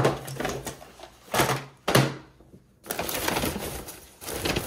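Paper gift bags rustling as hands dig through them, with a few sharp knocks of boxes being set down on a wooden table in the first two seconds. A steady rustle of paper starts about three seconds in.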